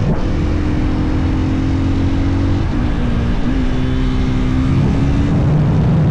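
Husqvarna FE 450 single-cylinder four-stroke supermoto engine running under way at fairly steady revs, its pitch dipping briefly about three seconds in and shifting again near the end.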